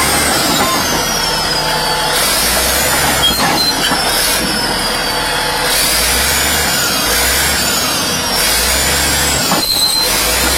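Caterpillar D8N crawler bulldozer running and moving, a steady low engine sound under the grind and squeal of its steel tracks, with high squealing tones that slide up and down.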